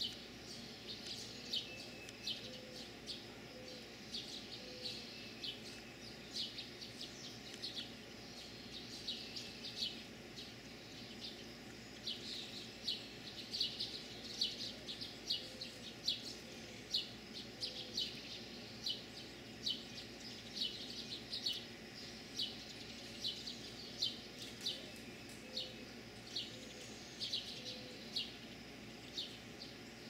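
Many small songbirds chirping constantly, several short high chirps a second. A low call of four or five notes comes three times underneath.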